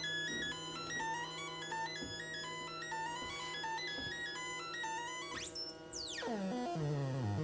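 ARP Avatar synthesizer playing a sequence of buzzy stepped notes driven by a step sequencer. About five and a half seconds in, the pitch sweeps rapidly upward and then slides down into lower notes. A steady low hum runs underneath.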